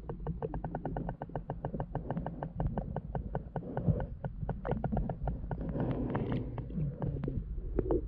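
Muffled underwater sound picked up by a submerged camera: a rapid, even train of sharp clicks, about six a second, over a low rumble of water against the housing.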